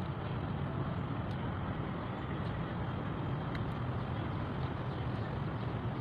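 Steady low rumbling outdoor background noise, like wind on the microphone or distant traffic, with a few faint clicks.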